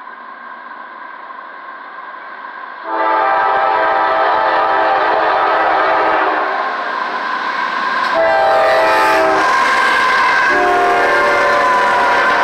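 Diesel freight locomotive's air horn sounding a chord, faint at first, then a loud long blast from about three seconds in, a short break, and further loud blasts from about eight seconds as the lead GE locomotives of a CSX intermodal train close in and pass. Locomotive engine and rail noise runs under the horn once it is near.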